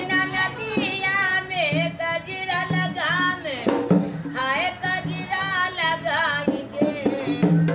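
An elderly woman singing a song in a high voice with sliding, ornamented notes. She accompanies herself on a dholak, a rope-tensioned two-headed barrel drum played with both hands, whose low strokes beat under the melody.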